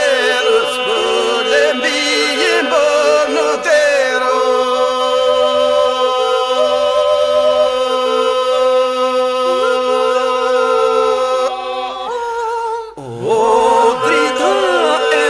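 Lab-style Albanian polyphonic lament sung a cappella: a group holds a steady drone beneath lead voices singing wavering, ornamented lines. A little before the end the drone breaks off briefly and a voice slides up from low in its range to start the next phrase.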